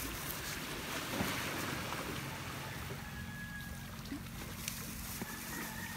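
Steady outdoor background noise, wind on the microphone over a low steady hum, with a few faint clicks.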